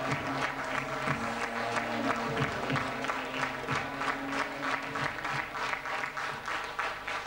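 Audience applauding over background music; the music fades out about five seconds in while the clapping continues.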